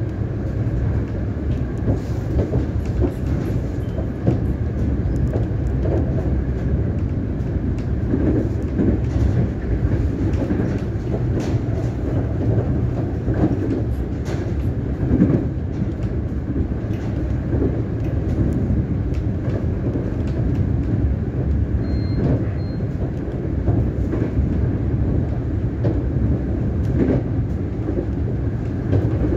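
Siemens Nexas electric multiple unit running along the line, heard from inside the carriage: a steady low running noise of wheels on rail, with irregular clicks and knocks.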